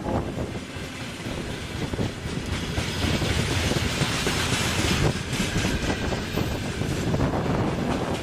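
Freight train hauled by a VL10 electric locomotive rolling by, its wheels clattering over the rails, with wind buffeting the microphone.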